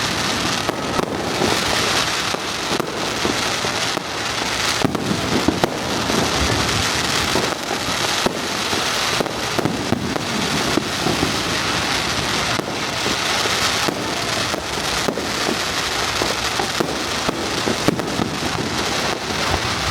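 Aerial fireworks going off in quick succession: a dense, continuous crackling and popping, broken by frequent sharp bangs.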